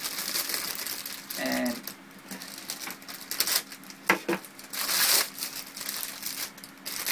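Thin plastic packaging crinkling and rustling as it is handled and unwrapped, with a sharp click about four seconds in.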